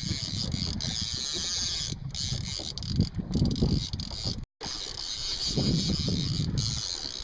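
Wind buffeting the microphone on an open boat at sea, a gusty rumble with steady hiss above it, cut off briefly about halfway through.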